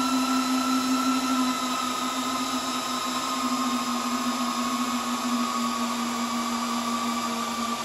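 Cooling fans of an Arista DCS-7124SX 10GbE switch running at high speed during boot: a steady whir with a low hum and a higher whine, both drifting slightly lower in pitch as the fans begin to slow.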